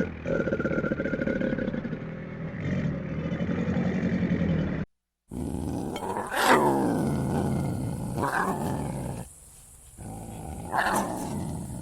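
An animal growling in a low, steady rumble, broken off by a short cut. After the cut come three loud roaring calls that start high and drop in pitch, the first the loudest.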